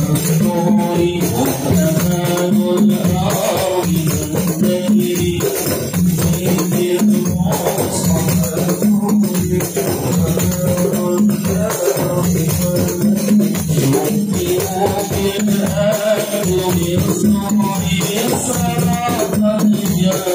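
Group of men chanting an Arabic sholawat (devotional praise song for the Prophet) together in unison, accompanied by steady hand percussion.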